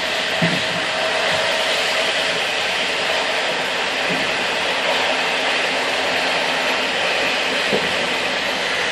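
Passenger train running along the track, heard from inside the carriage: a steady rush of wheel and rail noise under a faint steady tone, with a couple of brief knocks, one near the start and one near the end.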